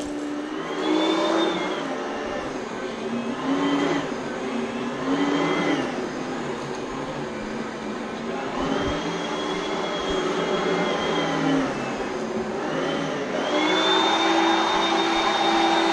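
Oreck upright vacuum cleaner running. Its motor whine dips and rises again several times as the load on it changes.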